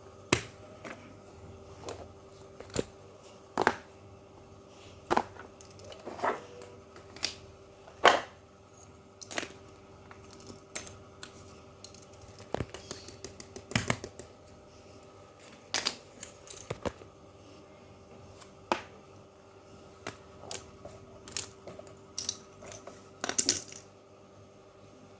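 Fidget toys being handled: irregular sharp clicks and taps, a couple of dozen of them, some in quick clusters, over a faint steady hum.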